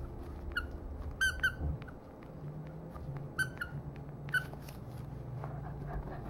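A plush dog toy's squeaker gives about six short, high squeaks, several in quick pairs, as a Shiba Inu bites and tugs on it.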